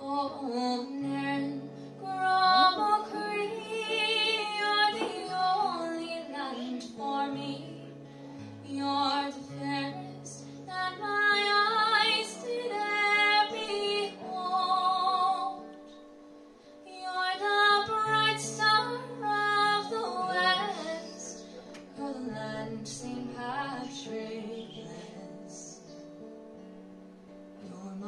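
A woman singing to her own acoustic guitar, in phrases with the guitar carrying on alone in the gaps between them.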